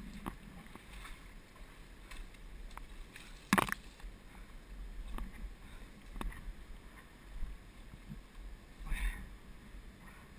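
Scattered rustles and clicks of brush and branches brushing against a handheld GoPro housing as it is carried through undergrowth, with one sharp knock about three and a half seconds in and a low rumble of handling noise underneath.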